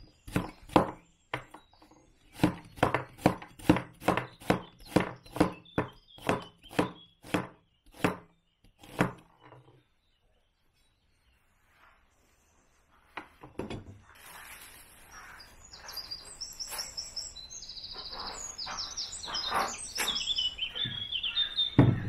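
A large broad-bladed knife chopping a red onion on a plastic cutting board: a run of sharp chops, about three a second, stopping after about nine seconds. After a short pause, small birds chirp over a steady hiss of background noise that grows through the second half.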